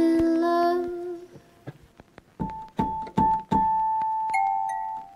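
Background music: a held chord fades out in the first second, then after a short pause a slow tune of single notes, each struck and left to ring, begins about two and a half seconds in.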